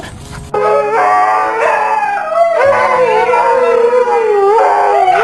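A dog howling in long, wavering, rising and falling calls that begin about half a second in, over background music with steady low notes.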